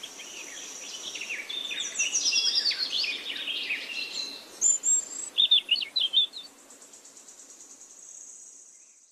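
Songbirds chirping and trilling in a busy overlapping chorus, loudest through the middle, with a run of sharp, loud chirps about five to six seconds in. A thin, steady high trill runs underneath and fades out near the end.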